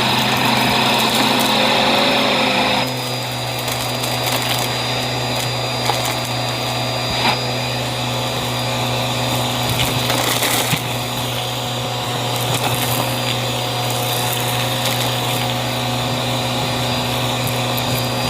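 Bissell CleanView vacuum cleaner running steadily, drawing air through its crevice tool with a constant motor hum and a high whine. The rush of air is louder for the first three seconds, then drops a little, and a few sharp clicks come through later on.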